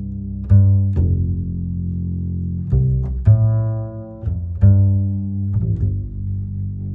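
Background music: a low bass line of held notes, each starting with a sharp attack, changing every second or so.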